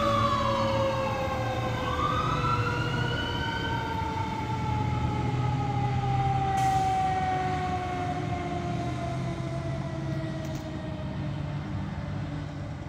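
Fire truck sirens wailing as the trucks drive off: the pitch falls, sweeps back up about two seconds in, then slides down slowly in one long falling tone, fading with distance. A low engine rumble runs beneath.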